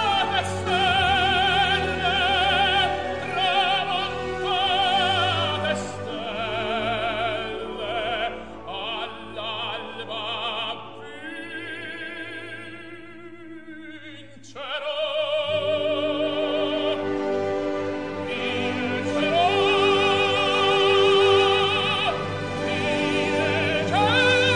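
Operatic singing with orchestral accompaniment: a voice with strong vibrato holding long notes, falling to a quieter passage about halfway through and then swelling again.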